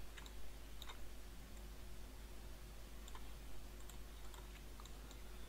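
Faint, scattered clicks of a computer mouse, a few short clicks spread irregularly over low steady room hum.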